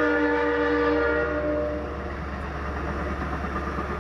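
Amtrak Pacific Surfliner train's horn sounding a multi-note chord that drops slightly in pitch at the start and stops about two seconds in. The steady rumble of the passing bi-level passenger cars on the rails continues after it.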